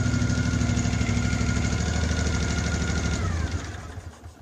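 The 18-horsepower V-twin engine of an MTD off-road riding mower running steadily at idle. About three seconds in it is shut off: its pitch falls and the sound fades as it coasts to a stop.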